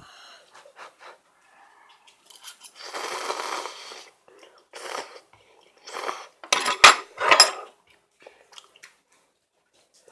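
Mukbang eating sounds: utensils clinking against a ramen bowl amid several short bursts of eating noise, the loudest cluster of clicks coming a little past the middle.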